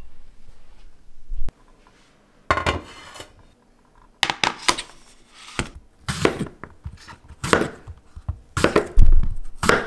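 Kitchen knife chopping an eggplant on a wooden cutting board, a sharp knock every half second or so from about four seconds in. Before that, a few scattered knocks and a short rustle.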